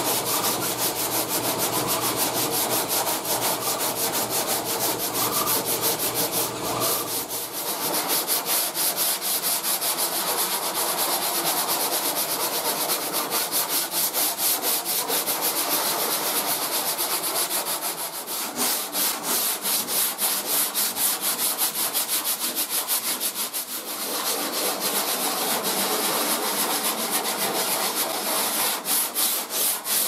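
Sandpaper on a small hand-held block rasping over cured body filler on a truck fender, in quick, rhythmic back-and-forth strokes with a few short breaks.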